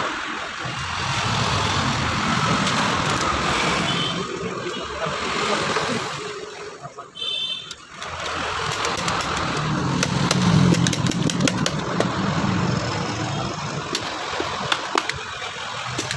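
An engine runs steadily, its sound swelling and fading and dropping away briefly about seven seconds in. Scattered sharp clicks and knocks come through in the second half.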